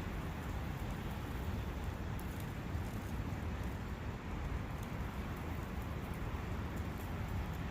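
A brook running steadily, an even rushing of water with a low rumble underneath.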